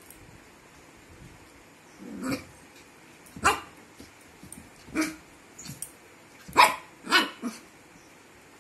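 Young puppy play-barking: after a quiet start, five short yaps a second or so apart, the loudest near the end.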